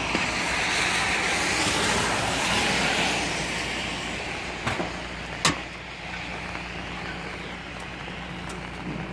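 A car passing on the rain-soaked road, its tyres hissing through the water and fading away after about three seconds, followed by a couple of sharp knocks about five seconds in.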